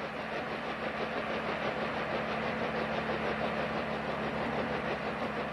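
Bell H-13 helicopter's air-cooled piston engine and rotor running steadily, with a fast, even pulsing.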